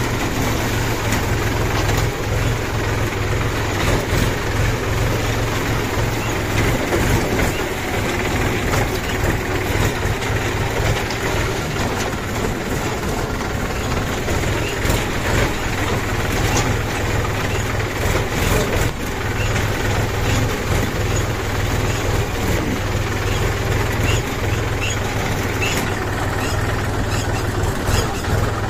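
Farm tractor's diesel engine running steadily as the tractor drives along at a slow, even pace.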